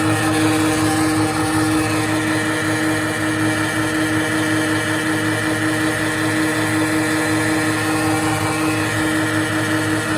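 Plastic pelletizing machine running with a steady motor hum and a constant mid-pitched tone.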